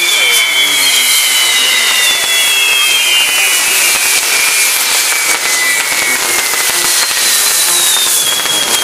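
Castillo fireworks tower burning: a loud, steady hiss of spinning pyrotechnics with several overlapping whistles that glide slowly down in pitch, a fresh whistle starting near the end.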